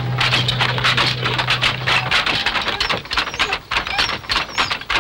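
Wooden handlooms clattering: rapid, irregular clacks, with a steady low hum for the first two seconds and short high squeaks from about three seconds in.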